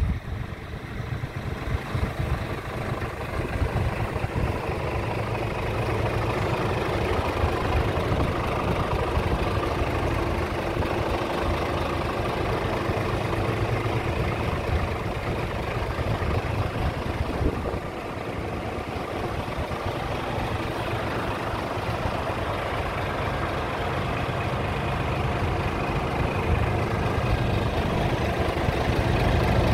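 Scania R tractor unit's diesel engine idling steadily.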